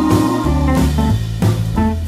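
Background music with guitar and a drum beat over a low bass line.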